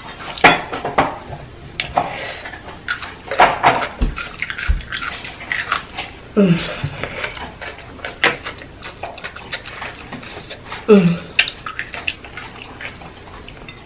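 Close-up eating sounds of someone chewing spicy instant noodles and a pickled yellow pepper: repeated wet smacks and clicks of the mouth. There are two low thumps about four seconds in and two short falling hums from the eater, about halfway through and near the end.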